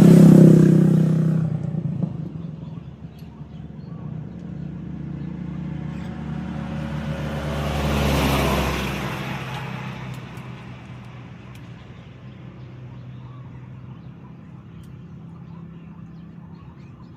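Motorboat engines passing: one is loud at the start and fades over a few seconds, and a second swells to a peak about eight seconds in with a deep rumble and wash, then fades away.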